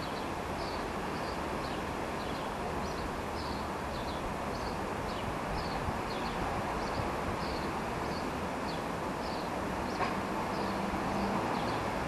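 A small bird repeating a short high chirp about twice a second, over a steady low rushing background.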